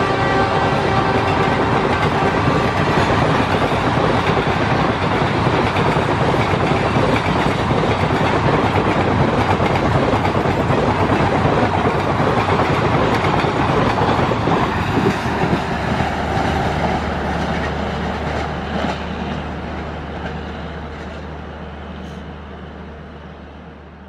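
Express train's passenger coaches passing at high speed: a steady loud rumble with wheel clatter on the rails, fading away over the last several seconds as the train draws off.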